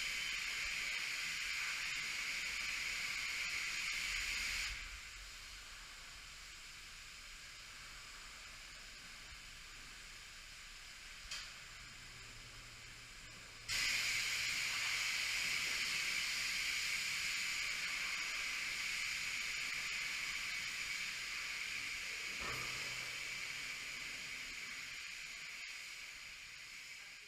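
Car wash pressure-washer wand spraying water onto a boat: a steady hiss that stops about five seconds in, then starts again abruptly about nine seconds later and slowly fades near the end.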